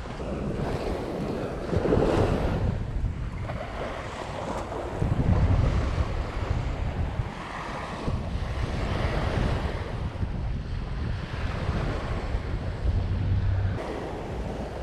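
Ocean surf washing onto the beach, swelling louder a few times as waves break, with wind buffeting the microphone.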